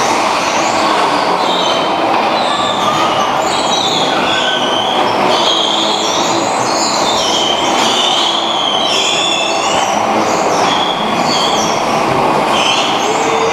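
Bumper cars running and spinning on a rink floor: a loud, steady din with many short, wavering high-pitched squeals throughout.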